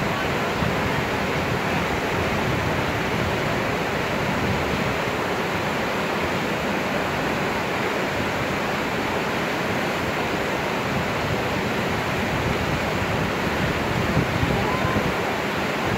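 Whitewater river rapids rushing: a steady, even noise of churning, breaking water.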